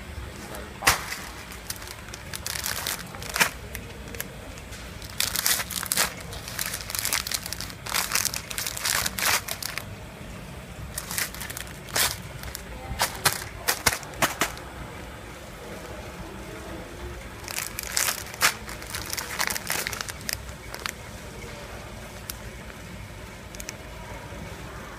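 Clear plastic bags of rice noodles crinkling in irregular bursts as they are handled, dying away near the end, over a steady low hum.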